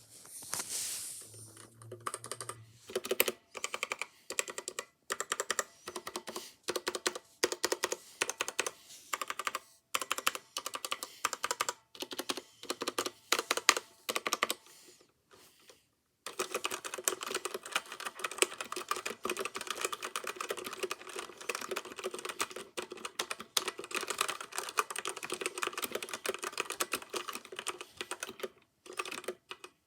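Redragon K552 mechanical keyboard with stock red linear switches being typed on: bursts of keystrokes separated by short pauses, a brief stop about halfway, then a long run of fast continuous typing.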